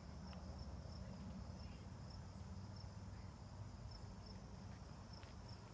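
A cricket chirping faintly and evenly, about two short high chirps a second, over a low steady rumble.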